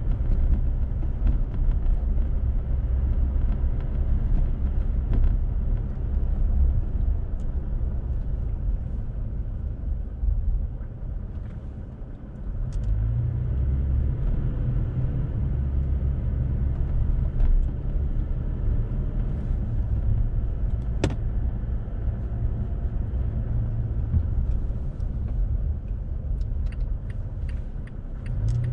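Steady low rumble of a car driving, its road and engine noise heard from inside the cabin. It eases off briefly around ten to twelve seconds in as the car slows, then picks up again. A single sharp click comes about twenty seconds in.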